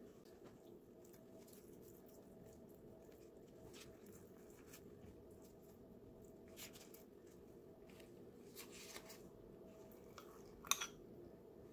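Quiet room hum with faint, scattered rustles of plastic-gloved hands handling shredded chicken, then a spoon stirring in a small glass bowl of seasoning, with a brief clink of spoon on glass near the end.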